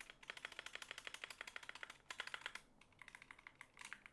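Rapid typing on a 60% mechanical gaming keyboard, many quick key clicks a second in two runs with a short break in between, played as a sound test of the switches.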